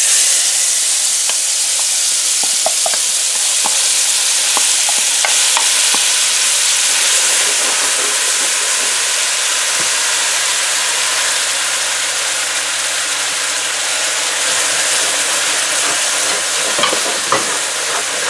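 Curry paste sizzling and frying in hot oil in a pot, stirred with a silicone spoon. The sizzle starts loudly as the paste goes in and holds steady, with a few light taps in the first few seconds.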